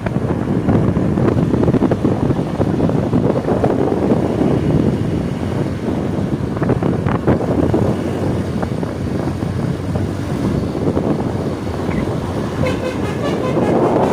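Heavy vehicle passing close by, with loud, steady engine and road noise. Near the end a telolet bus horn starts up with several tones sounding together.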